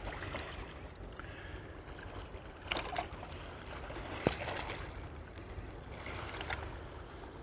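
Small waves lapping and trickling at the river's edge over a low steady rumble, with a few faint clicks, one sharper a little after four seconds in.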